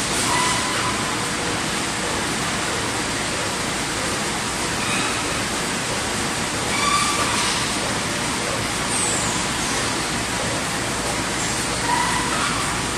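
ZYKM IV 900x2000 printing machine line running in production: a steady, even mechanical noise with a few short faint squeaks.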